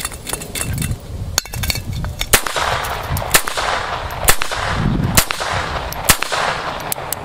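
Five unsuppressed shots from a Walther P22 .22 LR pistol firing supersonic rounds, about one a second, each a sharp crack with a short ringing tail. A few faint clicks come before the first shot.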